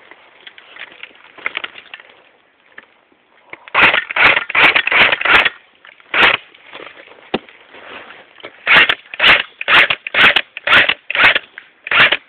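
Crunching footsteps on dry ground cover: a quick flurry of about five steps about four seconds in, then a steadier run of steps at about two a second in the second half.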